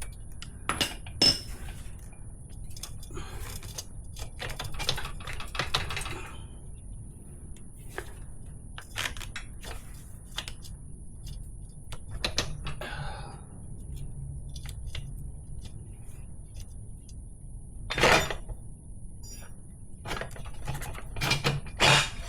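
Metal clinks, knocks and scrapes of tools and parts as a KLR650 motorcycle's rear wheel is worked loose and off, with two louder knocks near the end.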